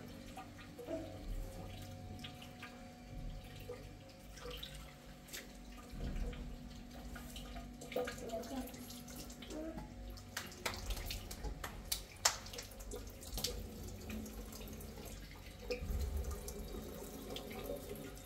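Water running and splashing, with scattered sharp clicks and knocks, most of them about two-thirds of the way through.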